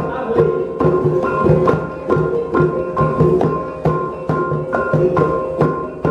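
Traditional Dayak percussion music: a quick, steady beat of struck percussion, about three strikes a second, with tuned tones ringing on between the strikes.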